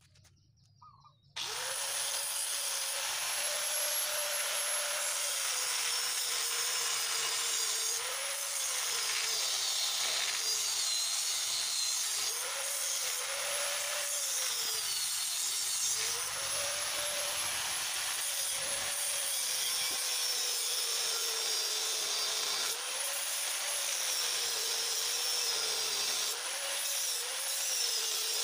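Electric angle grinder starting about a second in and cutting steel on a motorcycle frame: a steady, loud grinding with the motor's whine repeatedly sagging and recovering as the disc bites into the metal.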